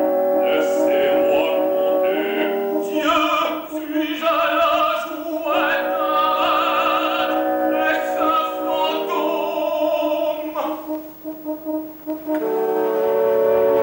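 Operatic singing with wide vibrato over an orchestra holding sustained chords. The voice drops out after about ten seconds, the music thins briefly, and a full held chord comes back near the end.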